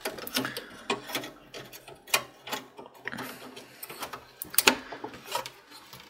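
Irregular clicks, scrapes and knocks of a PCIe Wi-Fi card's metal bracket being worked into the expansion-slot opening of a desktop PC's sheet-steel case as the card is seated, with a sharper knock about two seconds in and another a little past halfway.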